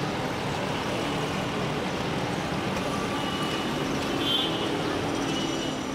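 Steady street traffic noise, an even wash of engines and tyres, with a few short high-pitched tones about halfway through.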